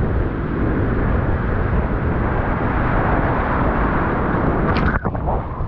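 Wind buffeting the microphone with a loud low rumble over the hiss of breaking surf and whitewater foam. The noise drops and breaks up briefly about five seconds in.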